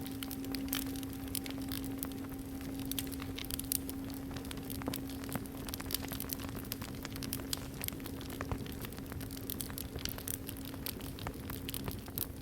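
A singing bowl's ringing tone held at one low pitch, with a fainter higher overtone dying away about halfway through, over the steady crackle and pops of a wood fire.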